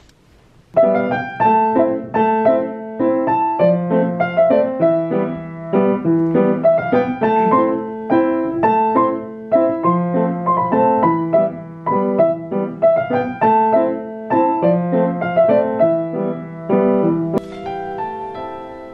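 Piano music: a piano playing a steady, repeating pattern of chords and melody, starting about a second in.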